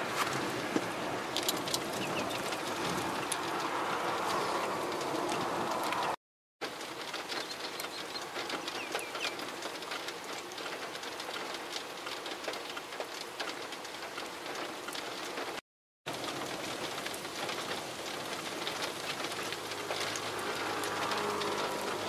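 Wind-driven typhoon rain, heard as a steady rush with scattered raindrop ticks. It cuts out to silence briefly twice, and a faint low steady hum comes in near the end.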